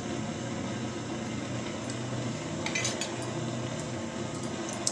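Metal spoon stirring curry in an aluminium pressure cooker, scraping and clinking against the pot a few times about three seconds in and again at the end, over a steady background hiss.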